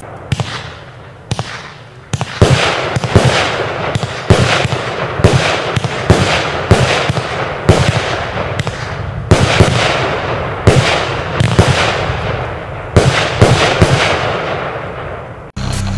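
A 14-shot, 25 mm firework battery (VOLT! #WATT 'Tank' cake) firing its shots in quick succession: a series of sharp bangs roughly half a second to a second apart, each trailing off, after a quieter first two seconds. The sound cuts off abruptly shortly before the end.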